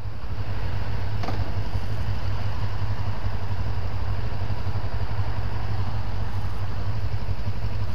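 Motorcycle engine running steadily at low revs, close by, with a constant low hum and road noise over it.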